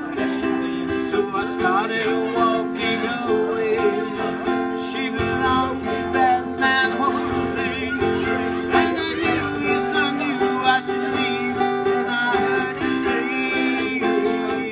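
Two acoustic guitars playing an instrumental passage, sustained chords under a moving melody line, with fuller low notes from about five seconds in.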